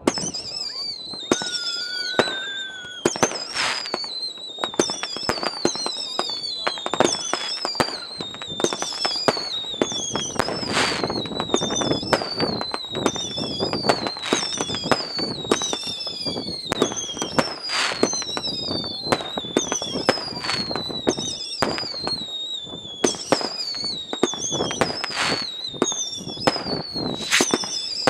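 Fireworks going off continuously: many high whistles falling in pitch, overlapping one another about once a second, amid sharp bangs and cracks of aerial bursts.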